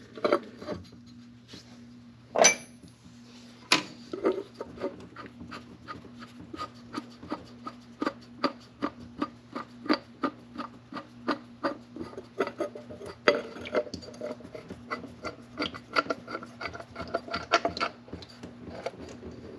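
Hand ratchet clicking in a steady rhythm, about three clicks a second, as the canister oil filter's retaining bolt is worked loose on the Triumph GT6's six-cylinder engine. There are a few sharper metal knocks near the start, and a faint steady low hum underneath.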